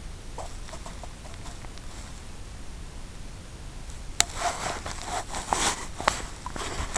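Steady low hiss. About four seconds in comes one sharp click, followed by a couple of seconds of scattered clicks and rustling.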